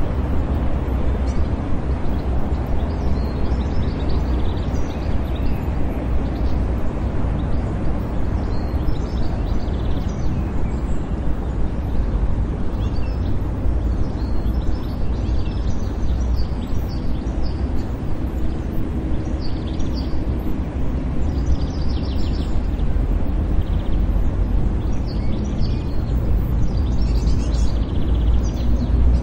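City park ambience: a steady low rumble of distant traffic, with small birds chirping on and off over it.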